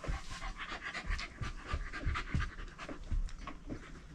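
A Shetland sheepdog panting rapidly, with a few soft low thumps.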